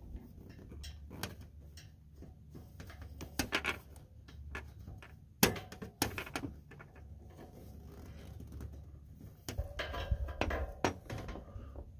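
Scattered light metal clinks and knocks of clamp hardware against a steel roof-rack cargo basket as it is fitted to the factory roof rails, with one sharper knock about halfway through.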